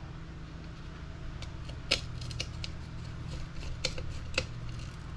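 Light clicks and taps of small plastic RC buggy parts and screws being handled on a workbench, with a few sharper clicks about two seconds in and around four seconds in. A steady low hum runs underneath.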